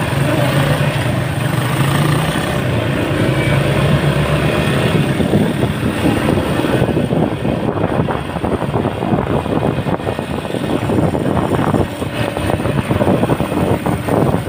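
Riding on a Yamaha Serow 250 motorcycle: its single-cylinder engine runs steadily, its pitch rising slowly over the first few seconds as the bike gathers speed. Heavy wind buffeting on the microphone, which comes to cover the engine.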